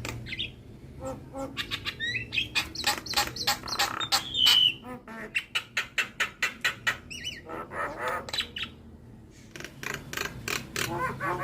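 Javan myna singing energetically: a fast, varied string of harsh chirps, clicks and squawks, with a short clear whistle about halfway through.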